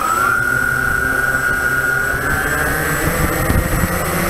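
Walkera Tali H500 hexacopter's electric motors and propellers spinning on the ground just after spin-up: a steady whine that climbs slowly in pitch over a low rumble of prop wash.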